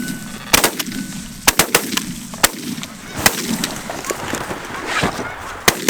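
A volley of shotgun blasts, about eight shots in quick irregular succession from several guns, as geese are shot over decoys; a few geese honk between the shots.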